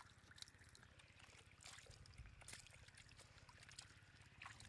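Faint wet splashes and slaps of small fish flopping in a shallow muddy puddle as hands grab at them, a few short ones scattered through, over a faint low rumble.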